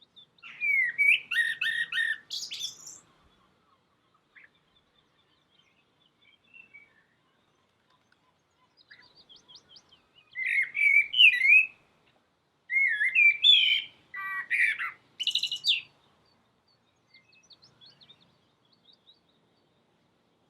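Birdsong: short phrases of chirps and warbles, one near the start and two more in the second half after a pause of several seconds, with faint scattered chirps in between.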